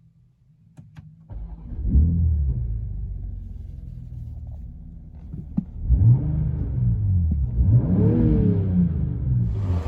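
BMW 240i's turbocharged straight-six starting up: a few clicks, then the engine catches and flares about two seconds in before settling to idle. It is then revved twice, the pitch rising and falling each time, about six and eight seconds in.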